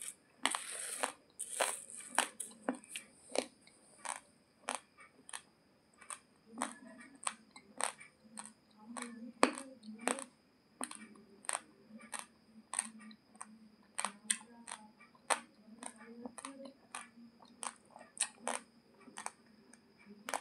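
Raw basmati rice grains being chewed, crunching and cracking between the teeth in short, sharp crunches about twice a second, irregularly spaced.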